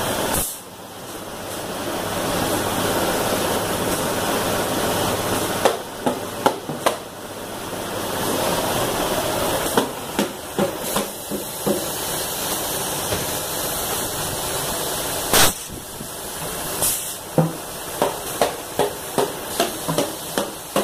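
Steady hissing machinery noise of a working plant around an industrial liquid filter, broken by scattered knocks, one sharp crack near the middle, and a quick run of clicks, about three a second, in the last few seconds.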